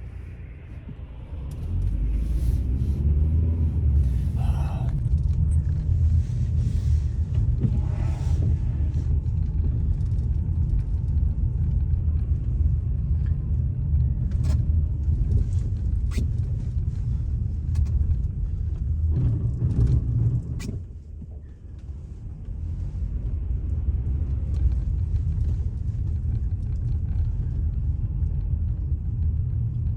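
Car driving, heard from inside the cabin: a steady low rumble of engine and tyres on the snowy road, easing briefly about two-thirds of the way through, with a few faint clicks.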